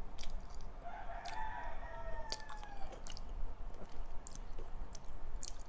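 A rooster crows once: a drawn-out call that starts about a second in and lasts about two seconds. Underneath are close chewing and mouth clicks from someone eating with their fingers.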